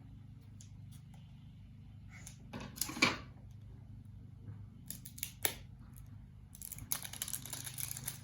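Plastic wrapper of a Ryan's World mystery putty packet being handled and opened: crinkling and rustling in spurts, with a few sharp clicks about five seconds in and a longer stretch of dense crinkling near the end.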